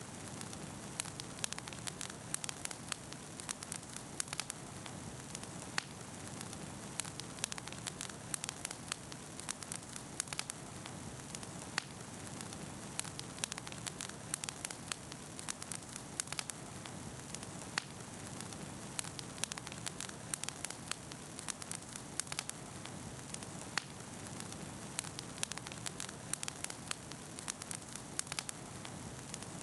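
Wood bonfire burning, with a steady hiss and frequent sharp crackles and pops.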